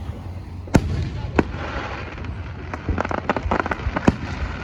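Aerial fireworks going off: a sharp bang about three-quarters of a second in and a second one soon after, then a quick run of crackling pops toward the end, over a steady low rumble.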